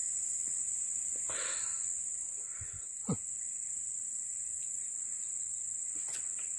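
A steady, high-pitched chorus of insects droning over swamp forest. There is a brief soft rustle about a second and a half in, and a short falling chirp about three seconds in.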